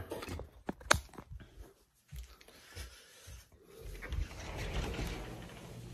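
Handling noise from a phone being gripped and moved, with a sharp knock about a second in, a few lighter knocks, and rustling in the second half.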